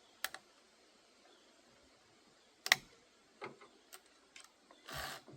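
Scattered sharp clicks and light knocks from the Holzfforma G260 chainsaw's bar and chain being worked by hand, the loudest about two and a half seconds in, with a short scraping rub near the end. The chain is binding tight on the bar instead of spinning freely.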